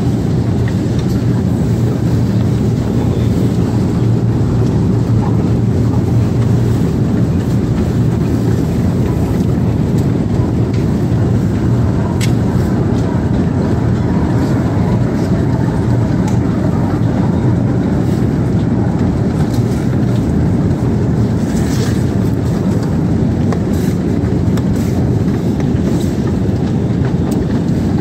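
Escalator running: a steady, even low mechanical hum and rumble of the moving steps and drive, with a few faint clicks.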